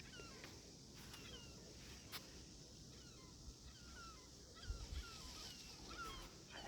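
Birds calling repeatedly, faint: many short chirping calls, a couple a second, over a steady hiss of surf or wind, with a few light clicks and a low thump about five seconds in.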